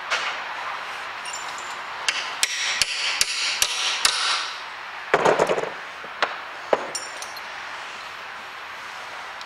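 Light hammer taps on a steel gear and shaft held in a bench vise, about six quick taps over two seconds, driving the gear down the shaft. A short metal clatter follows, then two single knocks.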